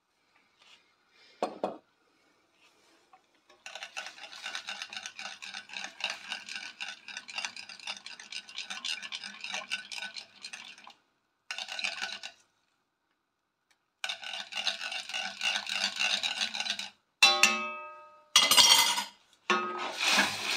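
A small metal spoon stirring a liquid sauce in a stainless steel frying pan, making rapid scraping and clinking against the pan in long runs. Near the end comes a loud metallic clang that rings on briefly, followed by a couple of loud knocks and scrapes.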